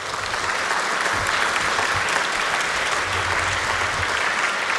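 Lecture audience applauding steadily after the speaker's closing thanks.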